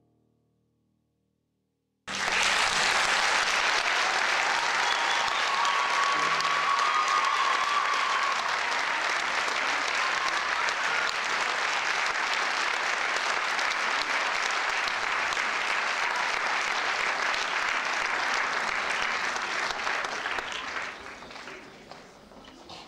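Theatre audience applauding, starting abruptly about two seconds in, holding steady, then dying away near the end.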